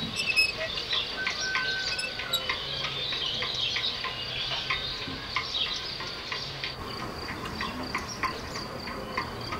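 Crickets chirping steadily in a chorus of many small, irregular clicks, with a thin high trill that holds a steady tone from about two-thirds of the way through.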